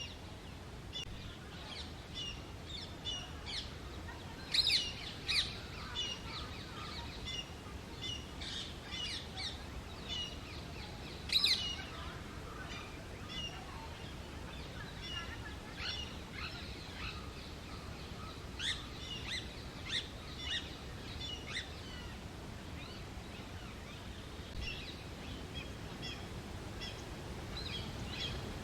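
Indian grey hornbill calling: many short, high-pitched notes repeated irregularly, with a few louder, sharper calls about five and eleven seconds in.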